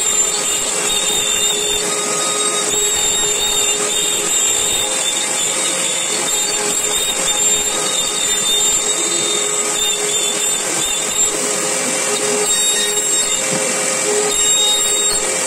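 CNC router spindle milling a white-faced panel while a vacuum hose held at the bit sucks up the chips. The machine noise is loud and steady, with a constant high-pitched whine.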